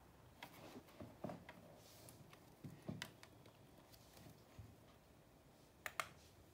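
Faint computer mouse clicking, with a few soft taps and knocks, then a sharp press-and-release click near the end.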